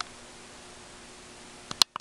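Steady recording hiss with a sharp click at the start and a quick cluster of two or three loud sharp clicks near the end.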